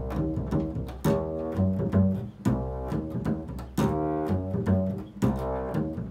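Upright double bass played pizzicato: an improvised line of plucked notes at changing pitches, about two a second, each with a sharp attack and a ringing decay.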